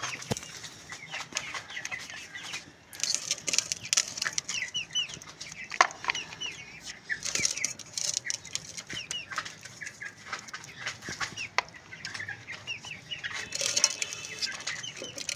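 A flock of chickens feeding, with many short, high clucks and chirps overlapping and scattered sharp clicks and rustles among them.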